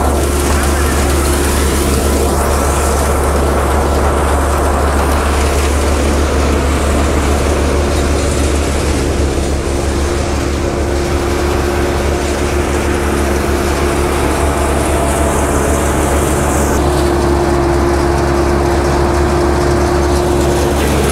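Tractor-driven peanut thresher running steadily while peanut plants are fed into it: a constant low engine drone with a few steady tones and a wide mechanical noise on top.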